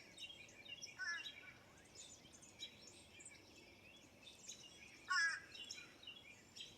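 Morning songbird chorus: many faint, high chirps, with two louder phrases of quick downslurred notes, one about a second in and one about five seconds in.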